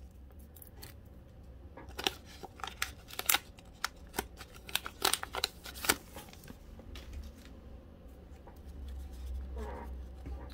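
Foil wrapper of an Upper Deck hockey card pack crinkling and crackling as it is torn open by hand. The crackles come irregularly over the first six seconds, then it quietens to softer handling as the stack of cards comes out.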